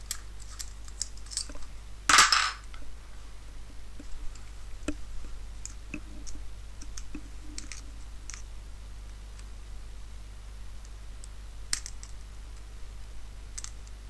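Small metallic clicks and scrapes from a brass Abloy Easy disc-detainer cylinder lock being handled: a key turned in the cylinder, then a precision screwdriver worked at its back. A louder half-second rasp about two seconds in stands out among the scattered clicks.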